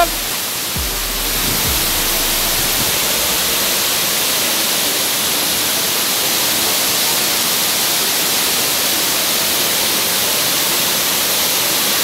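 Waterfall cascading over rocks: a steady, even rush of falling water that gets a little louder and brighter about a second in.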